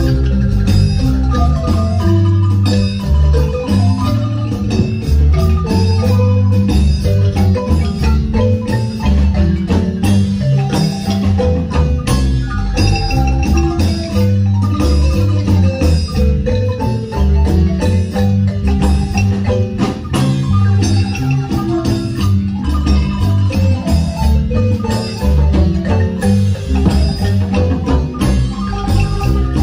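Guatemalan marimba dance music playing loudly, with steady bass notes under quick, repeated mallet notes.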